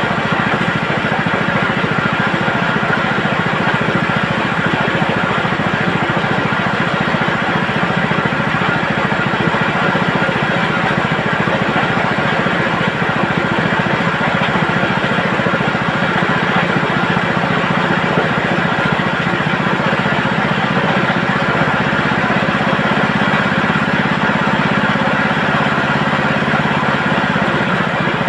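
Chicken-plucking machine running steadily with a loud, even mechanical noise, its motor spinning the plucking drum. The lower tones shift slightly about twenty seconds in.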